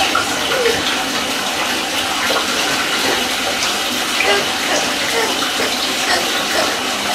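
Water running steadily into a bathtub, a constant rush with a few faint small voice sounds over it.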